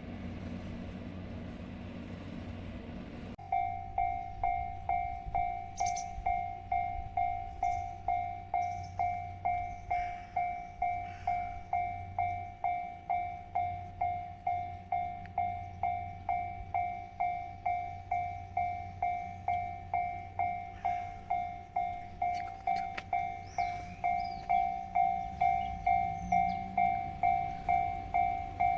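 Japanese railway level-crossing warning bell starting up about three seconds in and ringing at an even clang of about two strikes a second, the signal that a train is approaching. Before it starts there is only a low steady hum.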